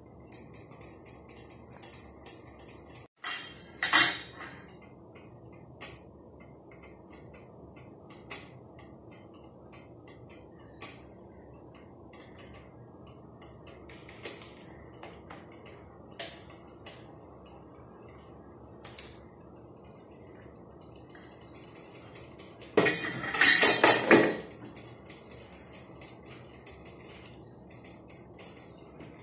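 A metal utensil clinking against a stainless steel cooking pot: a sharp clank about four seconds in and a longer spell of clattering near the end, with scattered light taps over a steady low background noise.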